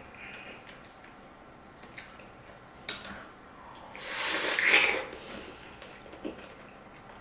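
A person eating, with one loud breathy rush of noise about four seconds in, lasting over a second, among faint scattered clicks.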